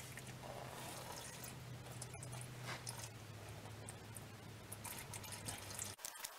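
Power steering fluid trickling and dripping from a loosened power steering pump, faint, with small clicks of handling on the part.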